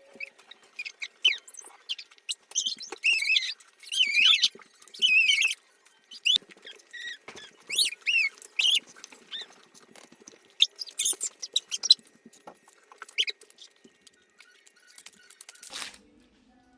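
Short, very high-pitched squeaky vocal sounds with wavering pitch, coming in many short snatches. They are loudest and longest between about three and six seconds in, with scattered clicks in between.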